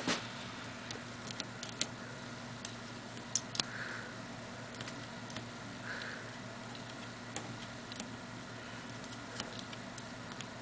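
Small, light metallic ticks and scrapes of a thin screwdriver nudging a retainer half into place inside a Stanadyne Roosa Master rotary diesel injection pump, irregularly spaced over a low steady hum.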